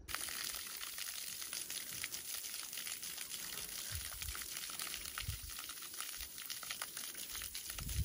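Water running out of a garden hose onto the ground: steady splashing with a fine crackle.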